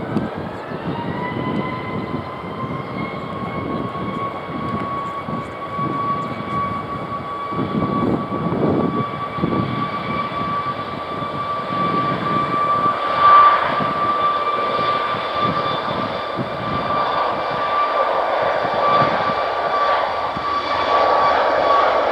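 A TUI Boeing 737 MAX 8's jet engines spooling up for the takeoff roll: a whine rises over the first second or two, then holds as a steady high tone over a rumble that grows slowly louder as the jet accelerates down the runway.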